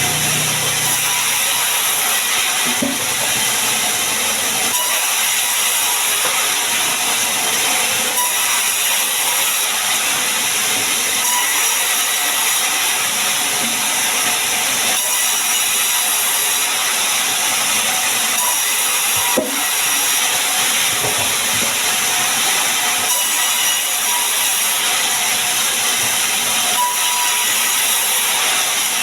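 Sawmill saw running steadily while cutting sengon wood, a continuous hissing noise with a few light knocks and one sharper knock about two-thirds of the way through.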